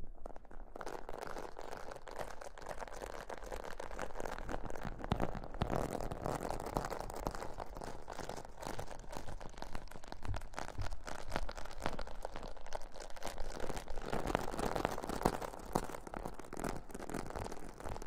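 Fingertips rubbing and scratching directly on a microphone's body, a dense crackling rustle full of fine clicks, the close-up ASMR imitation of hair washing. It swells twice, about a third of the way in and again near the end.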